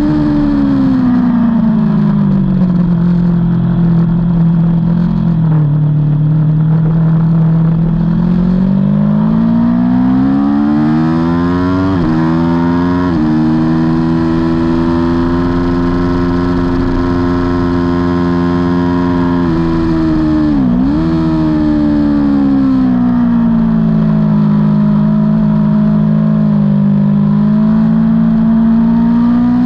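Aprilia Tuono V4's V4 engine at racing speed, heard on board. The pitch falls for a few seconds, then climbs hard with two quick upshifts, holds high, drops sharply for a moment about two-thirds through, then falls and rises again near the end.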